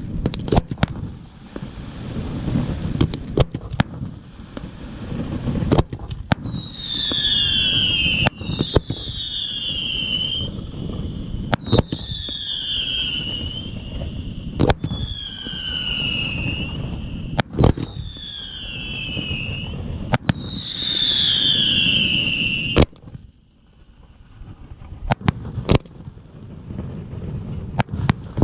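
Fireworks display: sharp bangs of bursting shells throughout, over a continuous low rumble. From about a quarter of the way in, a run of about six loud whistles, each falling in pitch, cuts off suddenly near the end, followed by more scattered bangs.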